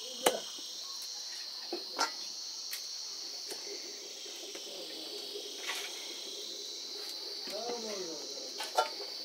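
A few sharp chops of a khukuri blade through buffalo skin and bone into a wooden chopping stump, spaced irregularly, over a steady high chorus of insects.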